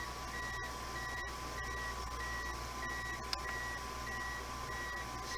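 A kitchen appliance, just switched back on, beeping repeatedly: short high beeps about three every two seconds, over a steady high tone and a low hum.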